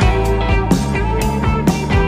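Background music with a steady beat, about two beats a second, over sustained instrumental notes.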